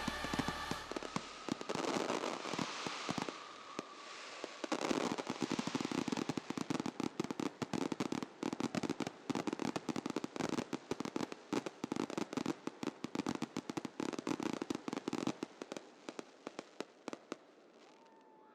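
Fireworks going off in a rapid, dense barrage of sharp bangs and crackles that thins out and fades near the end.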